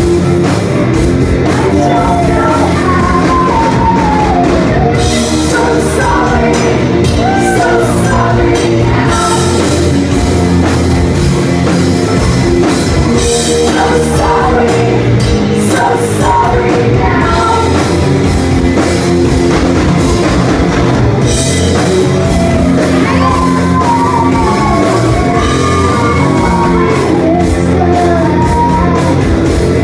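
Rock band playing live, with women singing over electric guitars and drums, loud and steady throughout, recorded from among the crowd on a phone.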